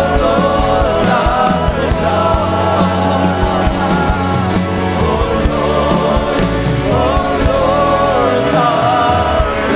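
Christian worship music with singing over sustained chords and a steady bass.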